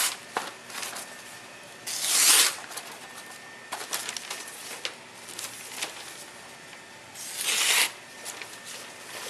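Gyuto kitchen knife blade drawn across a surface in three long hissing strokes, near the start, about two seconds in and near the end, with fainter scrapes and light taps between.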